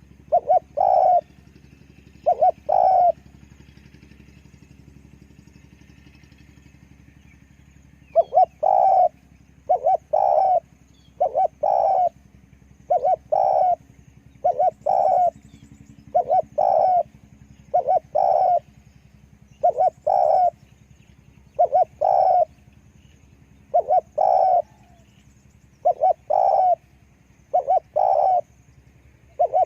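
Spotted dove cooing: short two-part coos repeated about once a second, with a pause of about five seconds after the first few.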